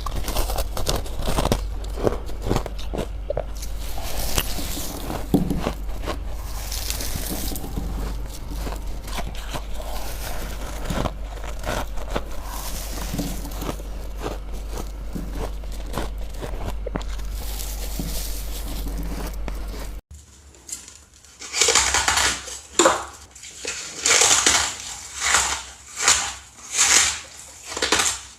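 Ice being bitten and chewed close to the microphone: dense, continuous crackling crunches over a low hum. About two-thirds of the way through there is a sudden cut, after which the crunches come singly, about one a second, each a crisp crackle.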